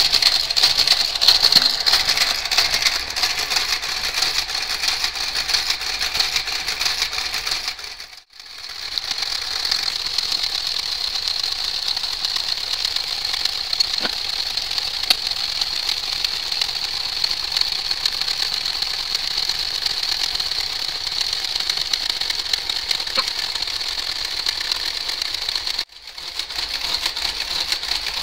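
Brother garter carriage running steadily along the knitting machine's needle bed as it casts off the stitches. It cuts out briefly twice, about eight seconds in and near the end, then carries on.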